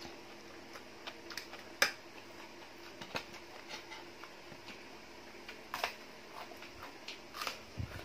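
Close-up eating sounds: crisp lettuce leaves being torn and crunched while chewing. Irregular sharp crackles come every second or so, the loudest about two seconds in, over a faint steady hum.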